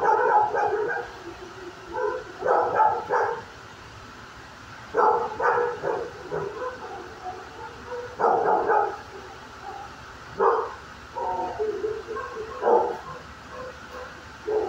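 Shelter dog barking in repeated bursts of a few barks each, about seven bursts with short pauses between them.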